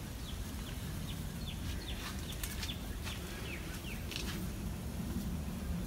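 A bird chirping: a string of short, falling chirps, roughly two a second, over a low rumble.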